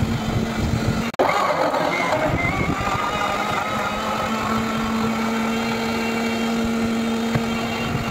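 Electric mixer-grinder motor running steadily with a constant hum as it blends pineapple chunks into juice. The sound cuts out for an instant about a second in.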